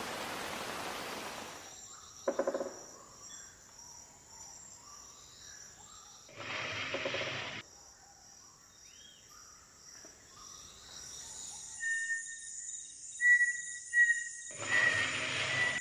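Rainforest ambience: a rushing noise cuts off in the first two seconds, giving way to a steady high insect drone. Short bursts of splashing come about seven seconds in and near the end as proboscis monkeys drop into the river, and whistled bird calls sound in the last few seconds.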